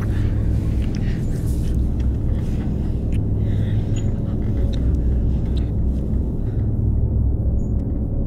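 Steady low rumbling drone from a horror film's sound design, with a few faint clicks above it.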